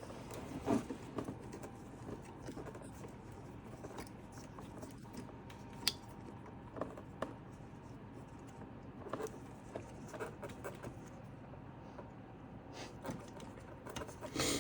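Scattered light clicks and taps of computer parts and small hardware being handled during assembly, over a faint steady room hiss.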